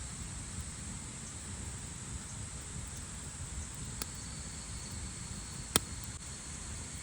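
Wood campfire in a stone hearth crackling, with a few sharp pops, the loudest about six seconds in, over a steady high insect drone.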